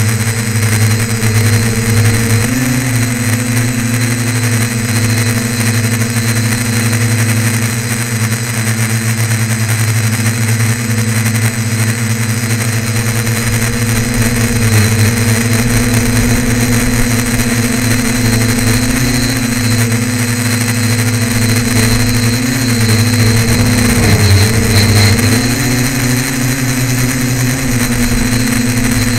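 A tricopter's electric motors and propellers buzzing steadily, heard close up from the aircraft's own onboard camera. The pitch steps up a few seconds in and wavers and dips near the end as the throttle changes.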